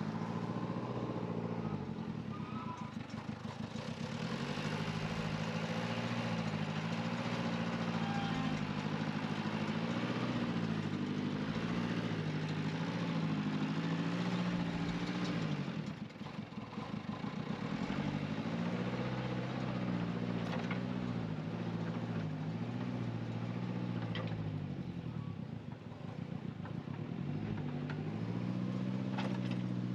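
Diesel engine of earthmoving machinery running under changing load, its pitch rising and falling every few seconds, easing off briefly about halfway through and again near the end.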